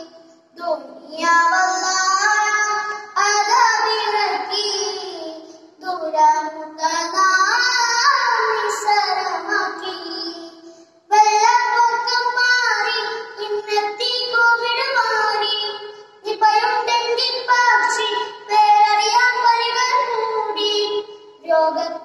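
A boy singing a devotional song solo, in melodic phrases about five seconds long with short breaths between them.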